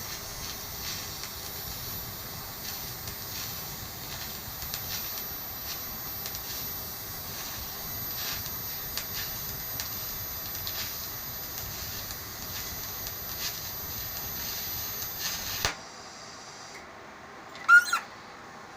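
TIG welding arc hissing steadily with light crackle, then cutting off abruptly near the end as the arc is broken. A short, sharp, high squeak follows shortly after.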